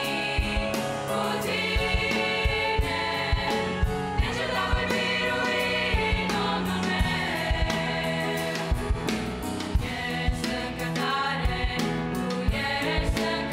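Girls' choir singing a Romanian Christian hymn in several voices, with piano accompaniment and a steady low drum beat.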